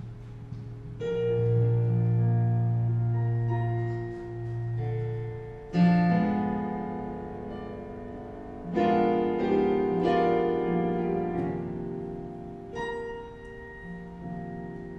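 Piano playing slow, sustained chords, a new chord struck every few seconds and left to ring out.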